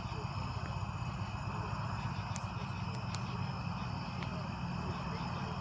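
Steady outdoor evening ambience: a constant low rumble with a faint, unbroken chirring of insects above it, and a couple of faint ticks about halfway through.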